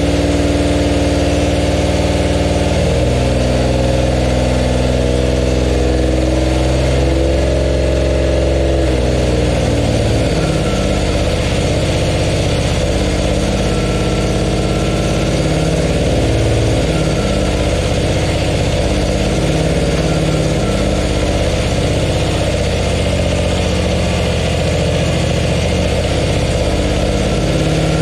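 An engine running at a steady idle. Its note shifts about three seconds in and turns less even from about nine seconds in.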